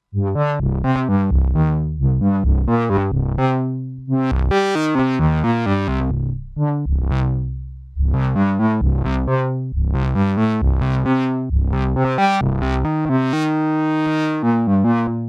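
Moog Subsequent 37 analog synthesizer played dry, with no reverb, delay or chorus: a melodic run of short notes with sharp starts that fade quickly, in phrases with brief gaps between them.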